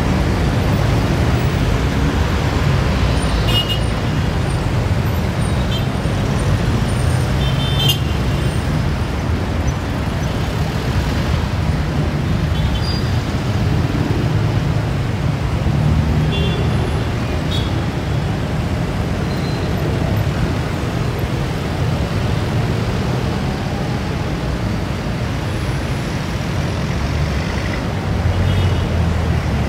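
Busy road traffic around a city roundabout: a steady rumble of car, truck and motorcycle engines and tyres. A few short high-pitched sounds come through it now and then.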